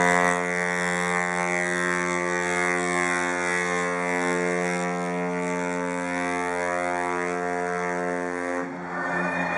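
Cruise ship Pacific Jewel's horn sounding one long, steady blast of about nine seconds, which cuts off near the end.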